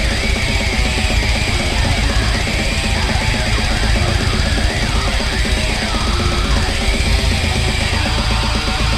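Loud, dense heavy metal-style music: distorted guitar over fast, relentless drumming, with high wavering tones gliding up and down above it.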